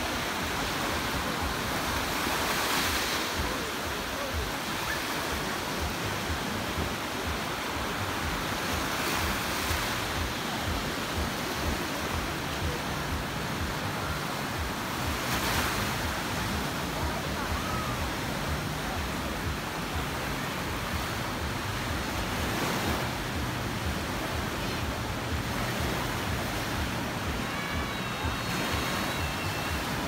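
Small Black Sea waves breaking and washing up a sandy beach: a steady hiss of surf that swells louder every six or seven seconds as a wave breaks.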